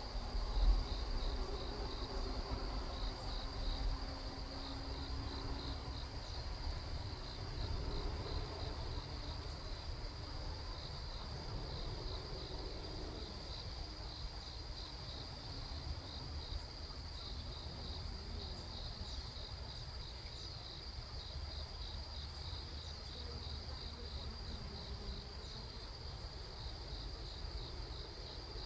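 Steady, high-pitched chirping of insects, a cricket-like trill pulsing a few times a second, over a low rumble. During the first several seconds there is also a faint low hum, fitting Korean native honeybees flying around the log hive.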